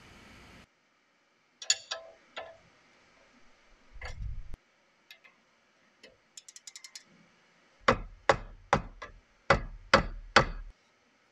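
Hand tools on a sway bar link's ball-joint nut: a ratchet holding a Torx 40 bit clicks in a quick run, then six sharp metallic clicks and knocks, about two a second, as the combination wrench and ratchet are worked against each other to counter-hold the stud.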